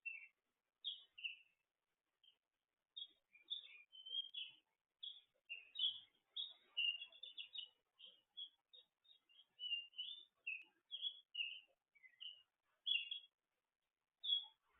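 Songbirds chirping: a busy run of short, high, quick notes, nearly continuous, with a brief lull about two seconds in.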